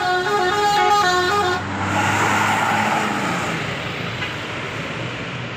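A Basuri bus's telolet horn, a multi-tone musical air horn, playing a quick stepping tune that stops about a second and a half in. A rush of noise and the bus's engine rumble follow and fade away.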